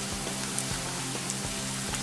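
Chopped onions sizzling in hot oil in a pan as they are stirred, with a steady hiss, over soft background music.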